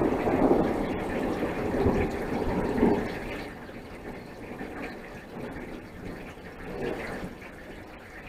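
Thunder from a close lightning strike rolling in a few swells, then dying away over the first three or four seconds. Steady rain hiss remains underneath.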